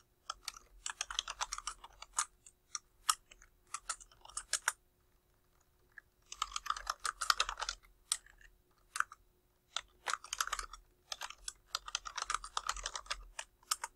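Typing on a computer keyboard: quick runs of key clicks, broken by a pause of about a second and a half near the middle.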